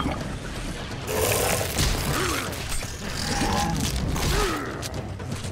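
Cartoon action sound effects: a loud, dense noisy rush with mechanical clattering, from about a second in until near the end.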